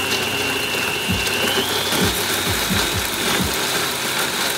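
Vitamix countertop blender motor running at speed, churning a thick mixture in its jar: a steady loud whir with a high whine that climbs in pitch about a second and a half in as the speed goes up.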